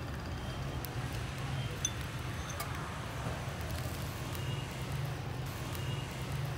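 Marinated eel fillets sizzling on a wire grill rack over hot charcoal, with faint crackles and a light metal clink of a basting spoon on the rack about two seconds in. A steady low engine hum runs underneath.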